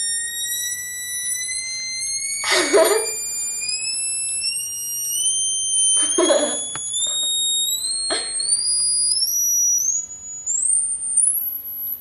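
Homemade Morse code practice oscillator sounding a continuous high-pitched beep through its small speaker, its pitch climbing in small steps as its 100K frequency-adjust pot is turned, until the tone goes out of hearing near the end. A few short bursts of laughter come over it.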